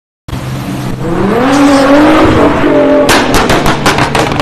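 Nissan GT-R's twin-turbo V6 revving up as the car pulls away, then a rapid run of exhaust pops and crackles. It starts abruptly a fraction of a second in.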